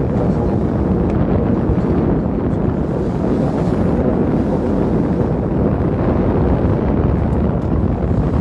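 Steady wind buffeting the phone's microphone on the deck of a moving boat, a continuous low rumble with no break.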